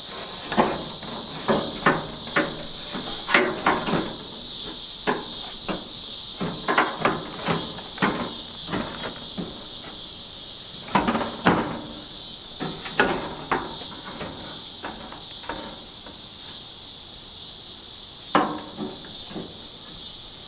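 Irregular knocks, taps and clicks of parts being handled and fitted into a pickup truck door, over a steady high drone of insects.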